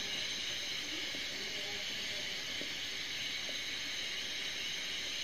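Steady hiss from an earthen clay pot of ginger steaming on the heat, with a few faint short pitched sounds in the background.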